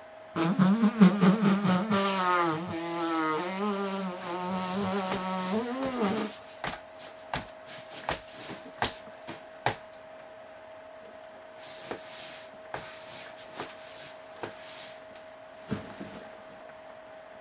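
A man's long, wavering moan lasting about six seconds, followed by scattered clicks and knocks of a handheld camera being moved about against bedding. A faint steady tone runs underneath.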